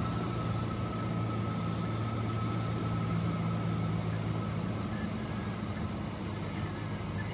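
Cessna 172's piston engine and propeller running steadily at low power, heard from inside the cockpit during the landing rollout. A faint high whine fades out about three seconds in.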